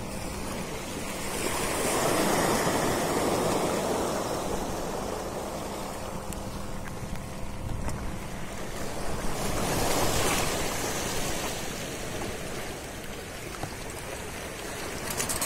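Sea waves washing in against the breakwater rocks, a steady rushing that swells twice, about eight seconds apart.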